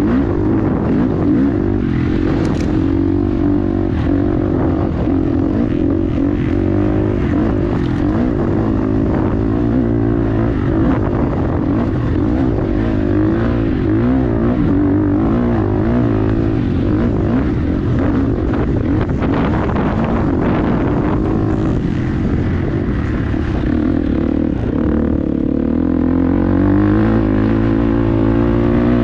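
A vehicle engine running under way, its pitch rising and falling with the throttle and climbing near the end.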